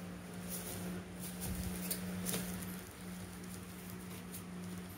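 Soft rustling and patting of a fabric barber's cape as hands unfold and smooth it flat on a table, over a steady low hum.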